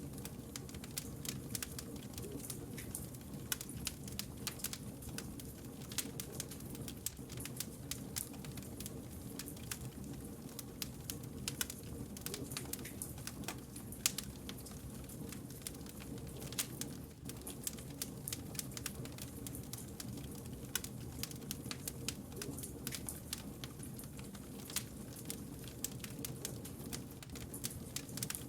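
Wood fire burning, crackling and popping with many small irregular snaps, and a sharper pop about halfway through, over a steady low rumble of flame.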